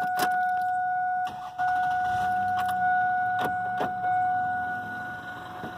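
A steady electronic warning tone inside a 1997 Toyota Avalon, broken briefly about a second in, with a few sharp clicks over it. Beneath it the engine starts and begins to run.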